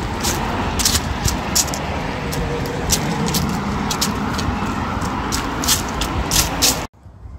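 Running footsteps on a concrete sidewalk strewn with dry fallen leaves, a crisp step about two to three times a second over a steady rush of noise. It cuts off suddenly near the end.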